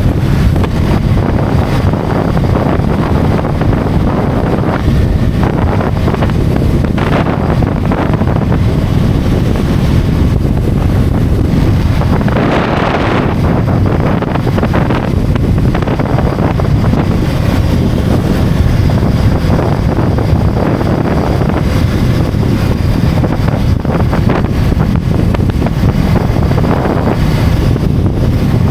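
Loud, steady wind rush buffeting the microphone of a motorcycle riding at highway speed, mixed with road noise.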